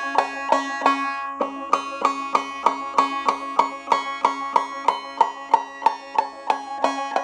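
Banjo played with repeated clawhammer 'clucks', percussive downstrokes of the fingernails dragged across the strings over a held chord, about three a second with a short pause near the start. Each stroke leaves a ringing high harmonic, the pinch-harmonic-like ring that the player says goes with the cluck.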